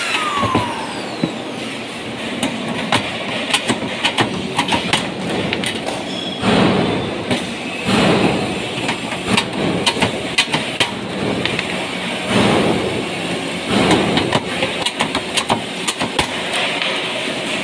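Sheet-metal light-fixture parts being handled and fitted: frequent light metallic clicks and clinks, with several short scraping rushes. At the very start a cordless drill's whine winds down.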